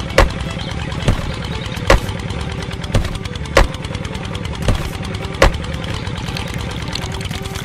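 A small motor running steadily with a low rumble, with a sharp knock about once a second, seven in all.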